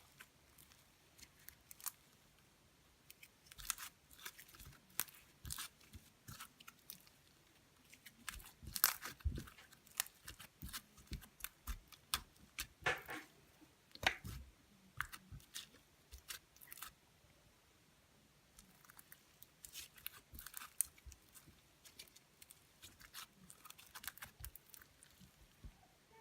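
Slime being squeezed and stretched by hand, giving irregular small clicks, pops and squelches, with a short lull about two-thirds through.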